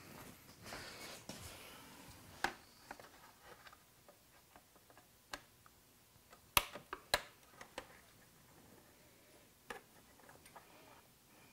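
Faint, scattered sharp clicks and taps, a handful spread over several seconds with two louder ones close together past the middle: plastic press-in fasteners and trim on a Gen 2 Suzuki Hayabusa's fairing being worked out by hand.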